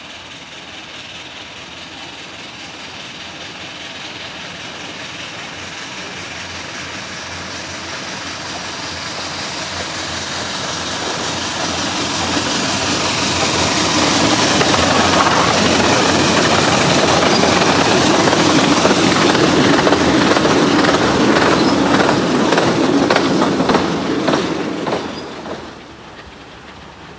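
Narrow-gauge steam locomotive pulling a train of coaches, growing steadily louder as it approaches and passes close by, with steam exhaust and the clatter of wheels on the rails loudest about midway. The sound drops suddenly near the end.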